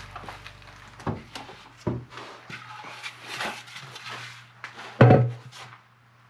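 A large wooden vase blank being handled and brought to a wood lathe: irregular knocks, clunks and shuffling, with one heavy thump about five seconds in, over a low steady hum.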